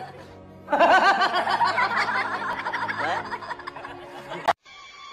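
Music with a person snickering and laughing over it, with a sharp click near the end.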